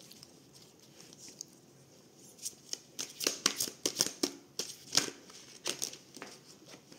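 A deck of oracle cards being shuffled by hand: after a quiet start, a quick run of sharp card flicks and slaps begins about two and a half seconds in and lasts a few seconds.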